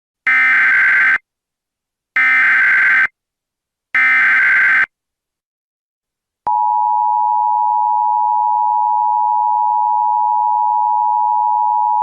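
Emergency Alert System header: three short bursts of buzzy digital data tones, evenly spaced about two seconds apart, which are the encoded alert header. About six and a half seconds in, a steady, unbroken attention tone starts and holds.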